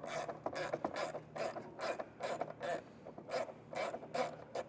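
Socket ratchet with a long extension and 12mm socket, worked back and forth in a dozen or so short strokes, clicking as it backs the nut off a taillight stud.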